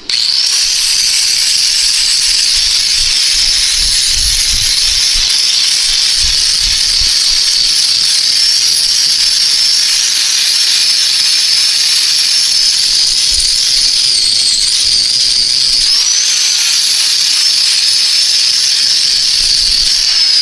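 Angle grinder running continuously as it scours rust off steel, a loud steady high-pitched whine over a grinding hiss, with a couple of brief dips in pitch past the middle as it is pressed into the work.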